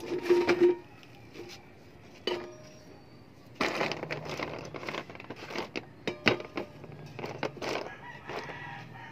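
Plastic clothespins clattering against a tin milk can and a plastic drum lid. There is a short clatter at the start, a single click a couple of seconds in, then several seconds of dense rattling and knocks as the pins are tipped out and handled. An animal calls in the background.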